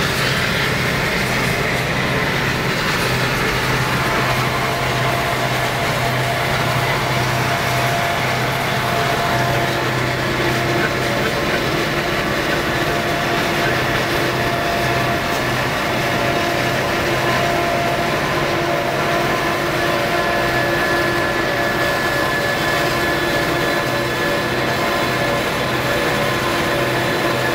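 Freight train running steadily at speed: a continuous rumble of wheels on rail with a low steady drone and a few faint sustained tones over it.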